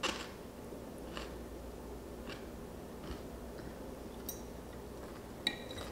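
A few faint crunches of chewing a dill pickle, about a second apart, then near the end a metal fork clinks against a glass pickle jar with a brief ringing tone.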